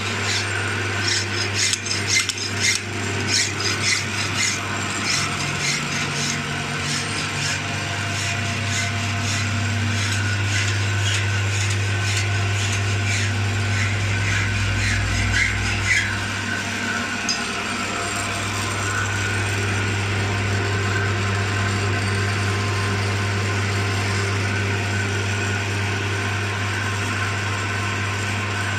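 Metal lathe running with a long harvester auger spinning in its chuck: a steady low hum, with the cutting tool scraping and chattering against the shaft end through the first half as it is turned down to bearing size, then smoother running after about halfway.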